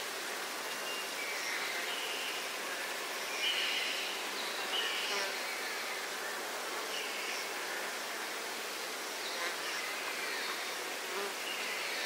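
Steady drone of insects, with several short, high bird chirps.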